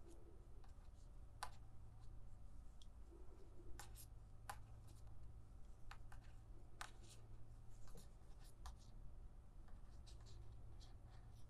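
Faint scattered clicks and soft rubbing of a metal crochet hook working wool yarn, stitch after stitch.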